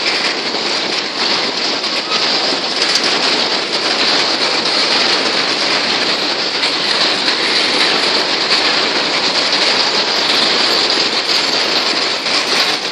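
Empty grain hopper wagons of a metre-gauge freight train rolling past: a loud, steady rushing noise of steel wheels on the rails.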